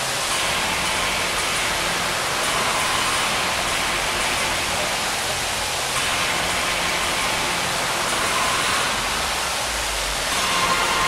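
Large show fountain's water jets spraying and splashing down into the basin: a steady hiss of falling water.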